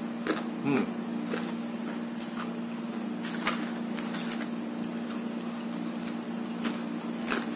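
A person chewing crunchy deep-fried carrot chips: scattered soft crunches and clicks, with the foil snack packet crinkling as a hand reaches in, over a steady low hum.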